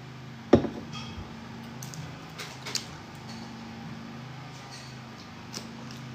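A sharp knock about half a second in, then light clicks and crackles of a plastic water bottle being handled and its cap taken off, over a steady low hum.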